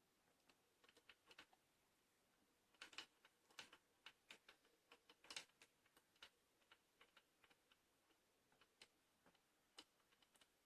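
Near silence broken by faint, irregular small clicks and ticks, a few at a time, with no motor running.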